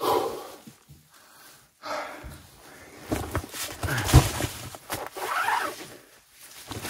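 A person breathing hard after exertion, loud breaths coming every second or so, with clothing rustling as a jacket is handled.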